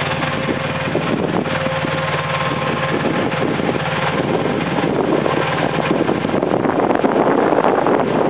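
Polaris RZR XP 900's parallel-twin engine running steadily as the side-by-side creeps up a ramp with one wheel lifted, getting a little louder over the last couple of seconds.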